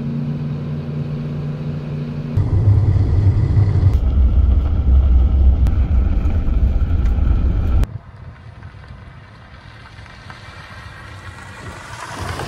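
A car being driven, heard from inside the cabin: first a steady engine hum, then after a cut a louder low rumble of tyres on a gravel road. After another cut it is quieter, with a vehicle's engine note rising near the end.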